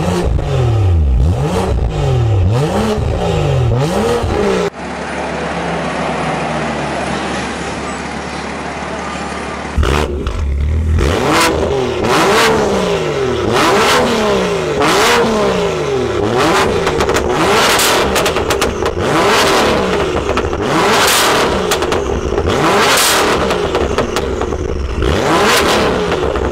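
BMW M2 (F87) turbocharged straight-six, parked, revved in repeated blips through an Armytrix valvetronic exhaust: first with the exhaust valves closed, then a quieter steady stretch of about five seconds, then louder blips with the valves open, with sharp cracks as the revs fall.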